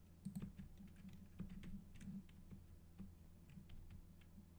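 Computer keyboard being tapped: faint, irregular key clicks, a few per second.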